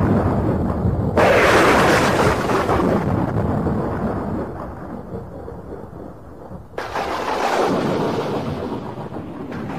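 Thunder sound effect: a clap about a second in that rolls off slowly, then a second clap near seven seconds that rumbles away again.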